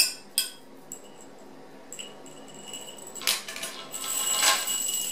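Anodized aluminium cleaning-kit chain clinking and rattling as it is handled: a few sharp metal clicks at the start, light ringing clinks about two seconds in, and a longer, louder jangle in the second half.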